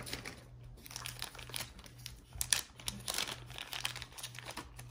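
Thin clear plastic bag crinkling and rustling in the hands as small jewelry pieces are worked out of it, in irregular crackly bursts.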